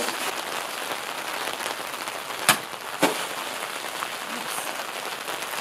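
Steady rain falling, with two sharp hits about half a second apart in the middle: a sword blade cutting through plastic water jugs.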